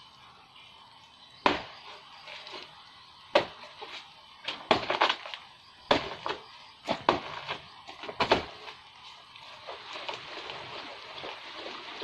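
Irregular sharp knocks and snaps as a person climbs the trunk of a banana plant. They come singly or in quick clusters a second or two apart, then give way to a steady crackling rustle of leaves near the end.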